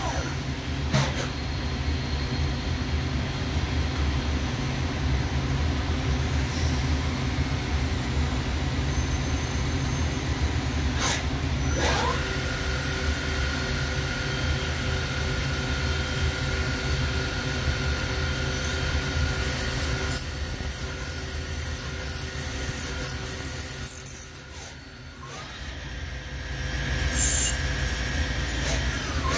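Doosan Lynx 220G Super CNC gang tool lathe running through a cycle: a steady machine hum with motor whine as the gang tool slide moves tools to the spindle. The whine glides in pitch a few times, and a few sharp clicks and squeaks come near the end, followed by a brief drop in level.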